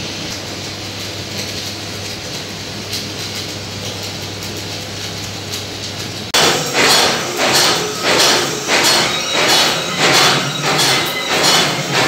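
Steady crackling hiss of an arc-welding arc with a low electrical hum, as the seam of a rolled steel mixer-drum shell is welded. About six seconds in it gives way abruptly to loud, regular metal strikes, about three every two seconds: hammering on the steel drum shell.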